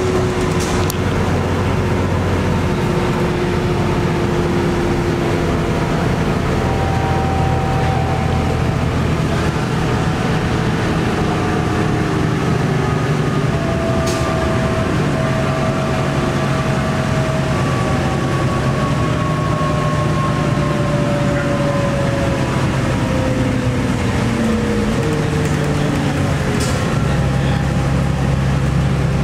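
A 1998 New Flyer D40LF transit bus under way: its Cummins ISC straight-six diesel and Allison automatic transmission running steadily with road noise, the engine and drivetrain tones slowly falling in pitch over the second half. A few brief clicks or rattles stand out now and then.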